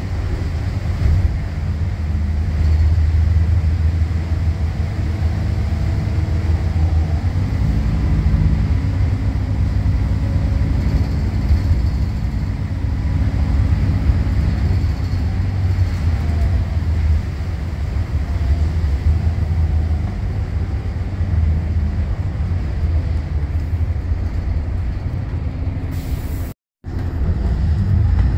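Volvo B8RLE bus's six-cylinder diesel engine and drivetrain heard from inside the cabin on the move: a steady low rumble with a whine that rises about eight seconds in, holds for several seconds and then fades. The sound drops out for a moment near the end.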